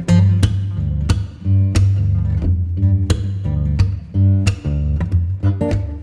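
Music: guitar strummed in a steady rhythm over a bass line.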